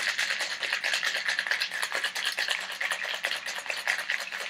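Ice rattling inside a cocktail shaker shaken hard by hand: a steady, fast rattle of sharp clicks. The margarita is being shaken to chill and mix it before it is strained.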